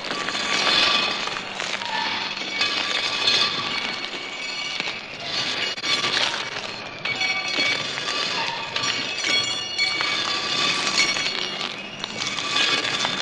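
Loud, harsh noise soundtrack of an experimental art film: a dense mechanical, industrial-sounding din that reminds of factories and airplanes, with crackle and high whistling tones that come and go.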